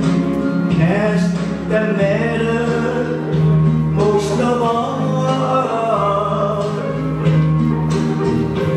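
A man singing karaoke into a handheld microphone over a recorded backing track, with a steady instrumental accompaniment underneath.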